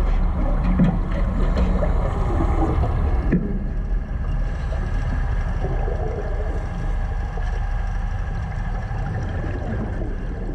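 Boat engine running steadily, a low rumble with noise over it; the sound changes abruptly about three and a half seconds in.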